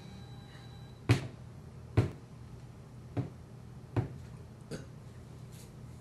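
A woman hiccupping: five short, sharp hiccups about a second apart, the first two the loudest and the last faint.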